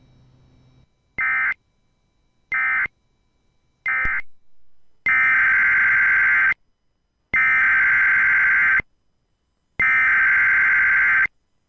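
Emergency Alert System SAME digital data bursts. Three short buzzy bursts are the end-of-message code that closes one alert. Then come three longer bursts, each about a second and a half with a second of silence between, which are the header that opens the next alert.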